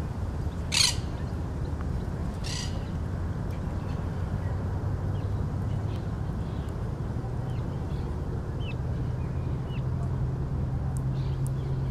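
Two harsh parrot squawks, about a second in and again near 2.5 s, with faint small-bird chirps after them. Under them runs a steady low rumble, and an airplane's engine drone grows and rises a little in pitch over the last few seconds.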